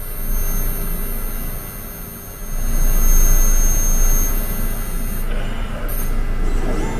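Benchtop microplate reader running an absorbance read: a steady low hum with a high-pitched electronic whine that stops about five seconds in.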